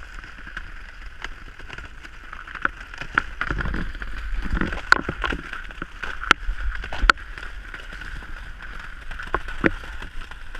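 Car tyres rolling across thin ice over floodwater on a frozen lake, with a steady rushing noise and many sharp cracks and crunches as the ice sheet breaks. The loudest cracks, with low rumbling, come around the middle.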